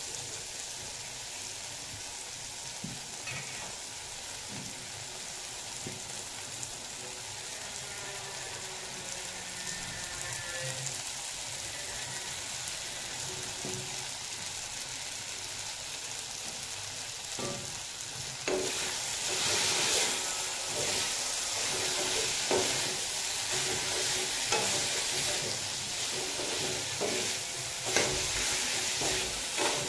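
Potatoes and sliced bitter gourd sizzling in oil in an aluminium kadai, with a metal spatula stirring and scraping against the pan. About two-thirds of the way in the sizzle gets louder and the scrapes come thick and fast as the stirring picks up.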